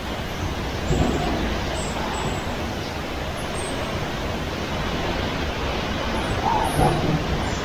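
Hurricane wind blowing hard, a steady dense rushing noise that swells briefly about a second in and again near the end.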